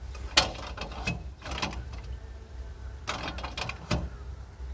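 A string of sharp metal knocks and clanks from work on a portable bandsaw sawmill, about six in under four seconds, over a steady low rumble.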